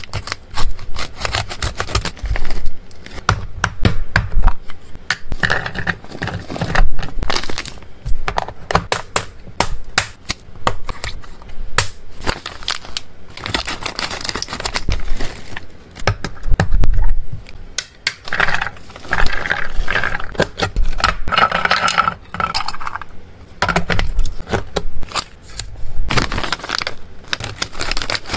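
Scissors snipping through foil-lined plastic pet-treat pouches, with the stiff packaging crinkling and rustling as it is handled. A dense run of sharp clicks and crackles.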